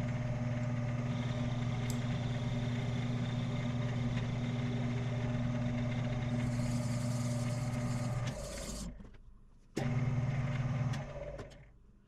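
Shoptask lathe-mill combo's lathe spindle running with a steady hum as a parting tool cuts the part. About eight seconds in it winds down, then runs again briefly and stops.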